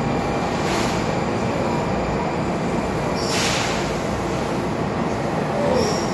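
Washington Metro 3000-series train standing at an underground platform, its running equipment making a steady loud rumble. A short hiss comes about three seconds in. Near the end there is a brief high tone and a bump as the car doors close.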